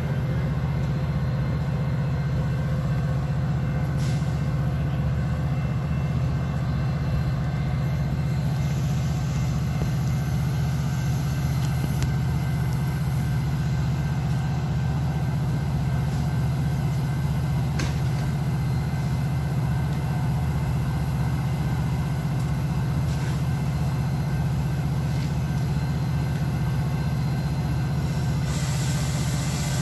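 Diesel passenger locomotive idling at a steady engine speed, a constant low drone that does not rise or fall. A hiss comes in near the end.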